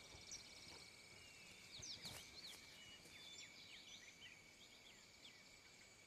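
Very quiet woodland ambience: faint scattered bird chirps over a steady high thin tone, with one soft knock about two seconds in.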